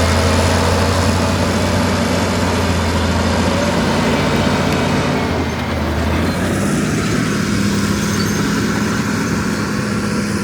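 Caterpillar D7 bulldozer's diesel engine running steadily; its note shifts about six seconds in.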